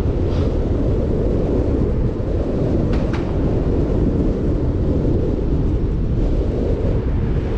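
Wind rushing and buffeting over a bike-mounted camera's microphone during a fast downhill bicycle ride, a steady low rumble. Two faint ticks come about three seconds in.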